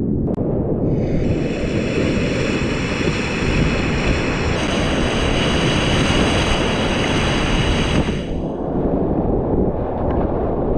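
Whitewater rapids rushing loudly around a kayak, with water and wind buffeting the microphone. From about a second in to about eight seconds in, a brighter hiss of spray and splashing sits over the roar.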